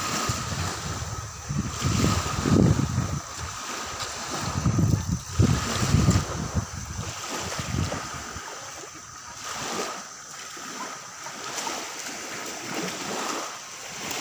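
Small waves lapping on a sandy shore, with wind buffeting the microphone in heavy gusts that die down about halfway through.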